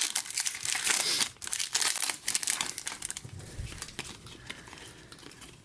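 Crinkling and rustling of Upper Deck hockey trading cards being handled and flipped through by hand, with many small clicks. The sound is busy for the first three seconds or so, then thins out and goes quieter.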